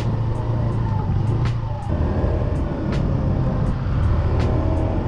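Motor scooter underway: its engine runs with a steady low drone under road and wind noise, and the note shifts abruptly about two seconds in.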